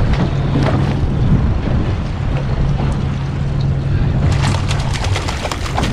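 A boat engine running steadily at trolling speed under wind and water noise. About four seconds in, a rougher, crackly hiss of wind or water joins it.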